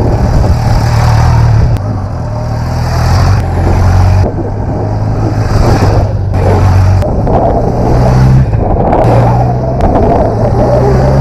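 Motorcycle engine under way, pulling through the gears: its pitch holds, then steps to a new pitch every few seconds as it shifts.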